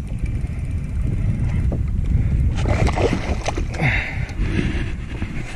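Wind rumbling on the microphone, then a hooked speckled trout splashing and thrashing at the surface beside the boat from about two and a half seconds in.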